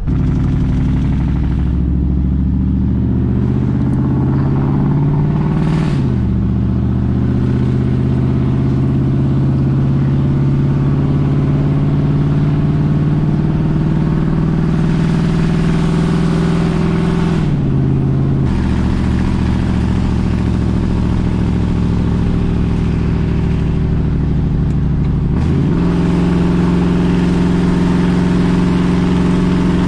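A Ford 5.4 Triton V8 runs loud through true-dual pre-cat straight pipes while the truck drives at steady speed. The engine note climbs slowly and drops sharply about 6 and 18 seconds in as the truck shifts up, then changes pitch again near the end.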